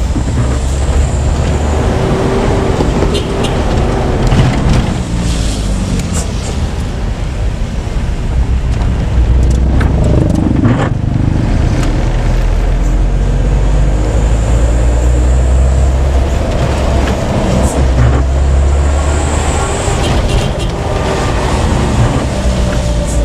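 Bus engine and road noise heard from inside the cabin while driving on a wet road: a steady low rumble that swells twice as the bus pulls harder, with a few short knocks and rattles.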